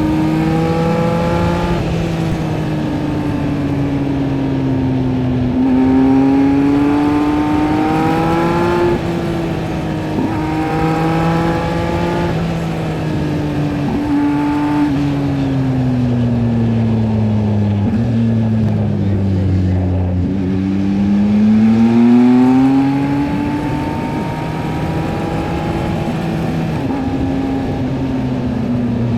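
Yamaha MT-09 SP's inline three-cylinder engine through a LeoVince LV Race exhaust, under way on the road. The engine note rises and falls with the throttle, with a few brief breaks in the first half, sinks slowly to about two-thirds of the way through, then climbs again.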